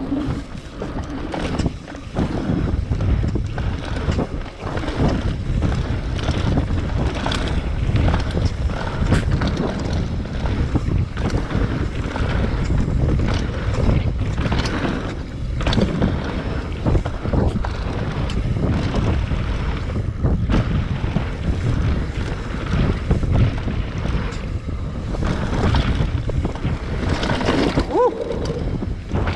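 Mountain bike riding down a woodland dirt trail, heard from a camera on the rider: steady wind buffeting the microphone and tyre rumble, with frequent rattles and knocks from the bike over the rough ground.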